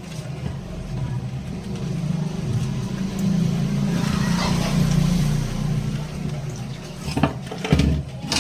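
Prestige mixer grinder's electric motor running with a steady hum that swells in the middle, followed by a few sharp knocks near the end.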